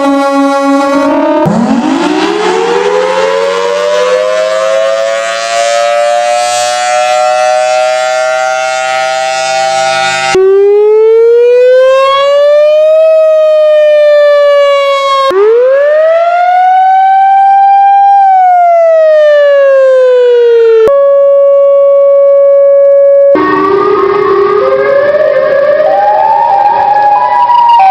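A run of outdoor tornado warning sirens, one clip cut to the next. The first winds up from a low growl into a steady wail. Two more rise and fall in long sweeps, a short steady tone follows, and near the end comes a siren that steps between pitches.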